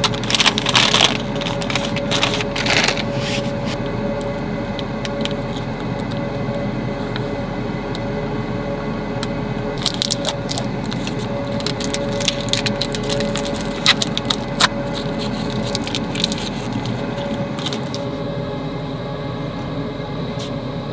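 A corkscrew being worked into a wine bottle's cork, with scattered cracks and crackles that cluster in the first few seconds and again from about ten to fifteen seconds in, over a steady hum.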